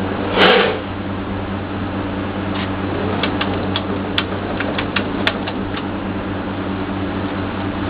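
Vacuumatic TCF friction feeder running with a steady motor hum, a short swish just under a second in, then a quick run of light clicks in the middle as cards are fed through and counted.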